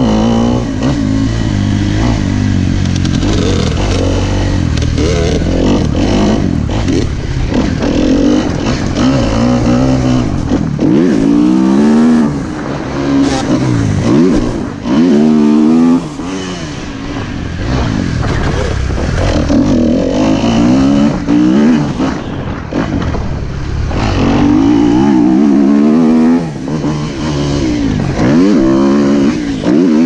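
Motocross dirt bike engine revving up and down over and over as the bike is ridden around the track, each rise in pitch breaking off at a gear change or a throttle chop. Wind buffets the microphone, most heavily in the first third.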